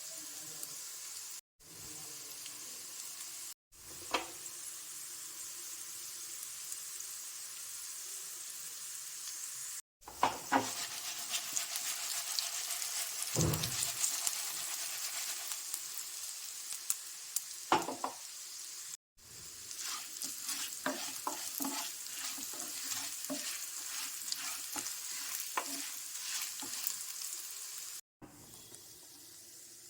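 Taro root pieces coated in besan frying in hot oil in a pan: a steady sizzle with scattered scrapes and clicks of a spatula stirring and turning them. The sound cuts off for a moment several times.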